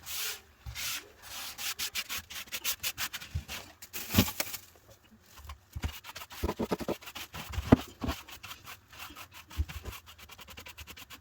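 A cloth wiping out a bathroom sink in quick, uneven rubbing strokes, with a few louder knocks about four and eight seconds in.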